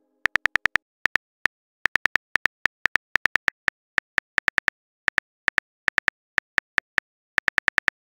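Keyboard-typing sound effect: quick, sharp clicks in irregular runs of several keystrokes with short pauses between them.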